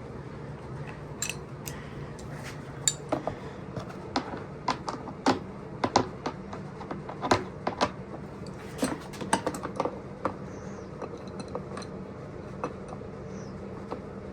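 Irregular light metallic clicks and clinks of hand tools (sockets and a wrench) being worked on the bolts of a dirt bike's fender, over a steady low hum.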